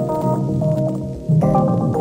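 Background music with held synthesizer-like chords over a bass line; a new, louder chord comes in about one and a half seconds in.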